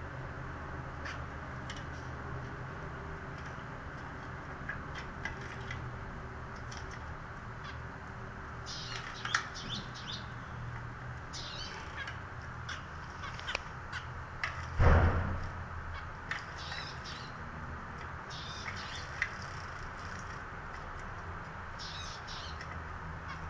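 Zebra finches calling with short, nasal beeps while bathing, with flurries of wing-fluttering and splashing in the bath water. One loud thud about 15 seconds in, over a steady low hum.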